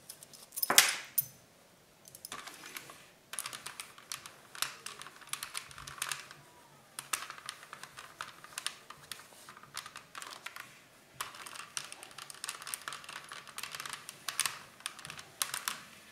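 Steam iron pressed and pushed over folded cotton fabric on a cutting mat: a dense run of small crackles and rustles, broken by short pauses. A single sharp knock about a second in.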